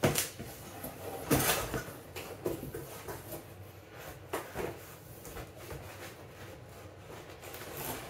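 Cardboard packing being pulled and slid out of a large cardboard box, heard as a few separate rustles and scrapes. The loudest comes about a second and a half in.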